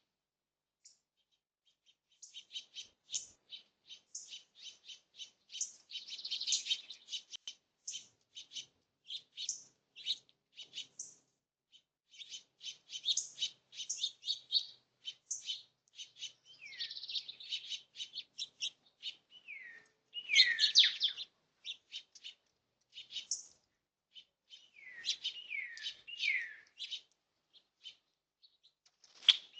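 Small birds chirping in quick, dense runs of short high notes, starting about two seconds in, with several downward-sliding calls in the second half.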